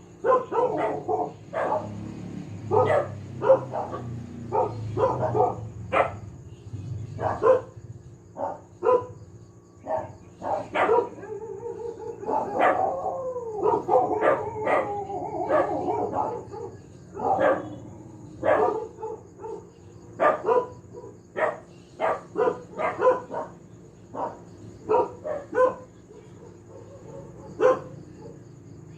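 A dog barking over and over in short, sharp barks. In the middle the barks give way to a few seconds of drawn-out, wavering howling, then the barking picks up again.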